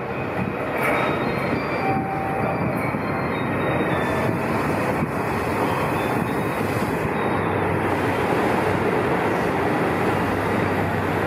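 JR Shikoku 2700 series diesel multiple unit pulling into the platform and running past close by: a steady rumble of wheels on rail and diesel engines, growing a little louder as the cars go by.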